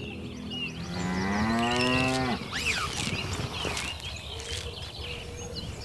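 A cow moos once about a second in: a single call of about a second and a half, rising slightly in pitch. Small birds chirp and sing throughout.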